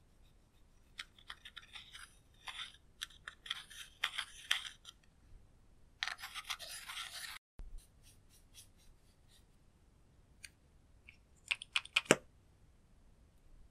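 Pressed eyeshadow being scraped and crumbled out of a plastic palette with a small plastic pick: a run of short, gritty scratching strokes, then a longer steady scrape. Near the end comes a quick cluster of sharp plastic clicks, the loudest sounds, as a small cosmetic tube is pulled open.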